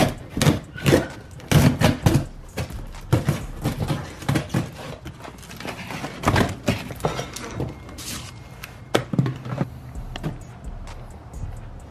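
A taped cardboard shipping box being torn open by hand, with the tape ripping and the cardboard flaps rustling and thumping in a string of irregular short sounds.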